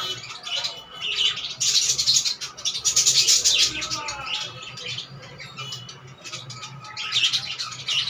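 Budgerigars chirping and chattering, with a stretch of loud, scratchy warbling from about a second and a half in to about four seconds, and more chirps near the end.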